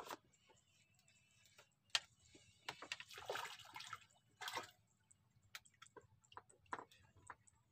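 A hooked fish splashing and thrashing at the water surface about three to four and a half seconds in, as it is reeled toward the platform. A sharp click at the start and scattered light ticks from the spinning reel being wound.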